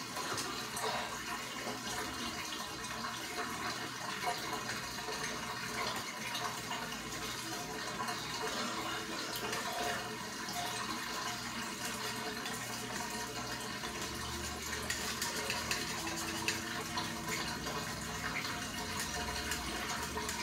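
Steady hiss of running water.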